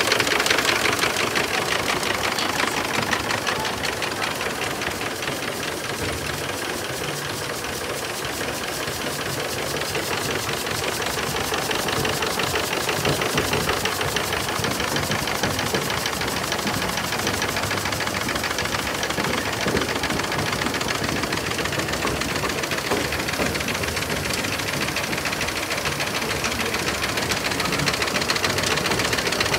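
Sir William Prescott triple-expansion steam engine's machinery running as it is started: a steady, fast mechanical clatter of many even ticks, growing a little louder about ten seconds in.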